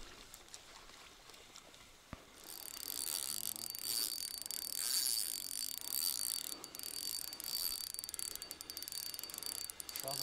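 A sharp click about two seconds in, then a spinning reel being cranked steadily, a fast clicking, ratcheting whir, as a lure is retrieved.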